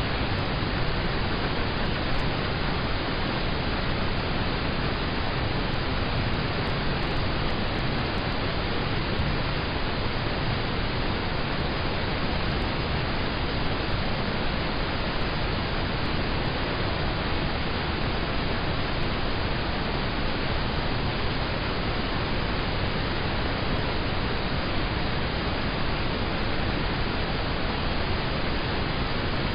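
Steady rain on a car, heard from inside the cabin as an even, unbroken hiss with no single drops standing out.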